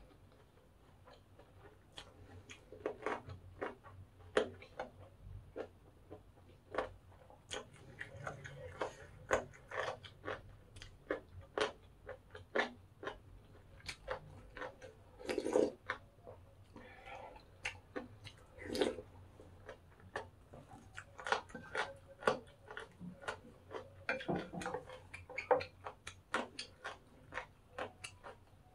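Close-miked chewing of crispy pork cartilage fried rice: irregular sharp crunches and clicks, often several a second, with a few louder ones. A metal spoon and chopsticks click against the dishes.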